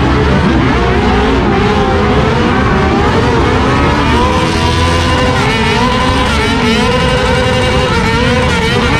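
Motorcycle engines revved hard again and again, their pitch rising and falling without a break, as a motorcycle's rear tyre is spun in a smoking burnout.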